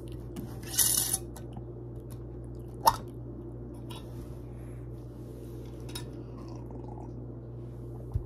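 Metal lid twisted off a glass mason jar: a short scraping grind about a second in, then a sharp click near three seconds. Faint mouth and swallowing sounds follow as water is drunk from the jar, over a steady low hum.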